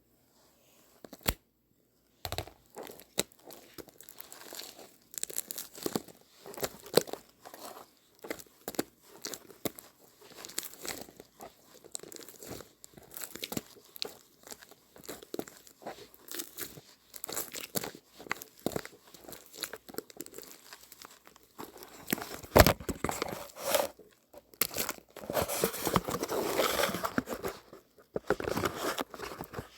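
Crinkling and rustling of handled material, a dense run of short crackles that grows denser and louder in the last several seconds.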